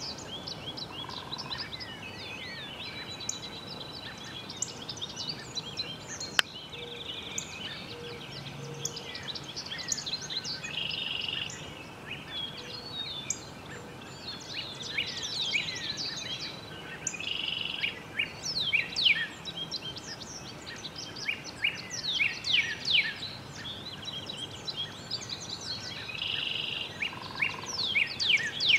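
Several wild songbirds chirping and calling over a steady outdoor background hiss: many quick, high, falling chirps, which grow busier about halfway through.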